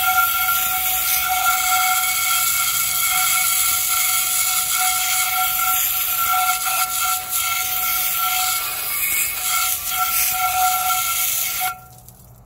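Garden hose spray nozzle jetting water onto a cast iron skillet to rinse off the lye after a soak in the lye tank: a steady hiss of spray with a steady whistling tone under it, cutting off suddenly near the end.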